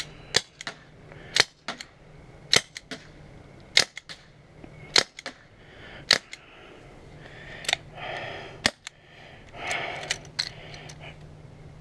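Gas-powered airsoft revolver (UHC 8-inch) firing single shots, each a sharp pop, about one every second and a quarter, eight in a row, with a few weaker clicks near the end.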